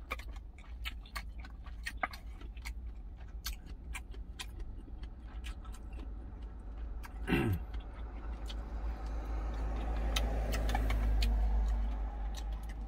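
Eating in a truck cab: light clicks and taps of a wooden spoon and chopsticks against a plastic food container, over a low steady hum. About seven seconds in there is a short falling 'mm' from the eater, then a passing vehicle swells up and fades over the last few seconds.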